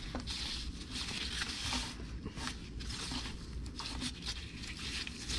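Rustling and light scraping of a nitrile-gloved hand and sleeve working among the cooler lines and engine parts, with a few small clicks.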